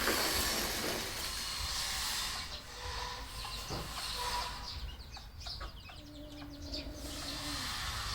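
Red junglefowl (wild chickens) clucking and chirping, with a cluster of short, high calls in the middle, heard over background hiss.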